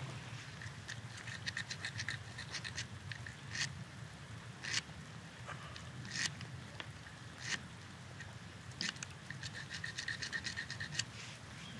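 Flint blade sawing back and forth in a wet scored groove in an antler: runs of quick, rasping scrapes, with a few single sharper strokes about a second apart in the middle.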